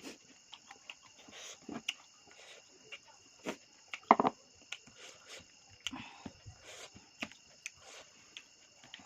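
Close-miked chewing and mouth sounds of someone eating meat: a scatter of soft wet clicks and smacks, with a louder burst about four seconds in. A faint steady high-pitched whine sits underneath.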